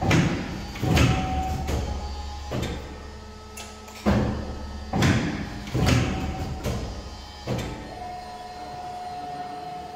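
Fuji 1320-4P paper and board guillotine cutter running: a series of sharp mechanical clunks, roughly one a second, over a steady low hum. Near the end the clunks and the hum stop, leaving a steady whine.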